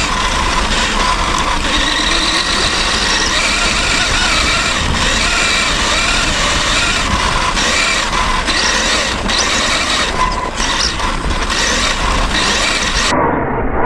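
Radio-controlled car driving, heard from a camera mounted on it: a steady motor whine over a loud rush of tyre and wind noise. About 13 seconds in, the sound turns duller.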